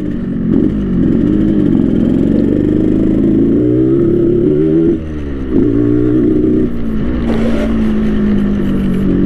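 Yamaha RX King two-stroke single-cylinder motorcycle engine, tuned for the 'ngorok' rumbling exhaust note, being ridden: the revs climb and drop as the throttle opens and closes, with a sharp fall about five seconds in and another near seven, then a steady note that sinks slowly toward the end.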